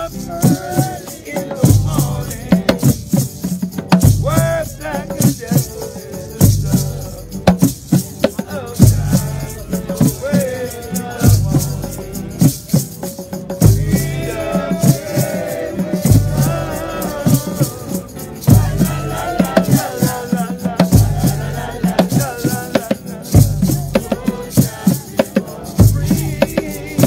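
Nyabinghi hand drumming with an acoustic guitar: a deep drum stroke falls about every two and a half seconds under quicker, sharper drum strokes, and voices sing along, most clearly through the middle.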